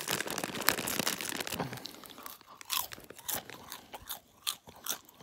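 Mouth chewing crunchy Holy Corn popcorn close up: a quick run of crunches for about two seconds, then slower, separate crunches.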